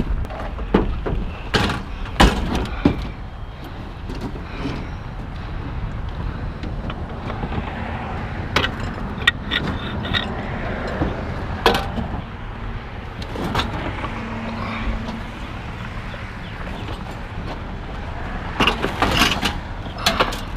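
Scattered knocks, clunks and clatters of heavy metal equipment being handled and moved, over a steady low rumble, with a cluster of quick clatters near the end.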